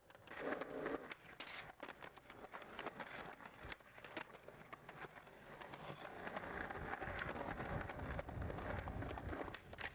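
Skateboard wheels rolling on concrete, with many sharp clacks and snaps of boards hitting the ground during street tricks. A low rumble builds in the second half.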